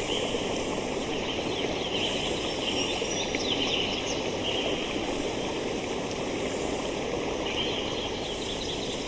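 Steady rush of a stream flowing over rocks below a waterfall, with birds chirping high over it in a few short spells.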